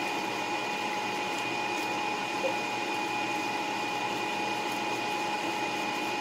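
Steady hum of a running motor or fan, with two constant whining tones over an even hiss.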